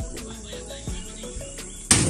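Background music: a plucked-sounding melody of short stepped notes over a steady beat, with one loud sharp hit near the end.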